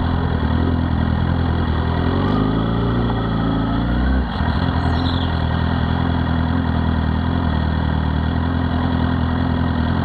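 Suzuki GSX-R1000 K7–K8 inline-four engine heard close up from the bike while riding: it runs steadily, climbs in pitch for about two seconds, then drops sharply with a brief dip as the rider shifts up a gear, and runs on steadily.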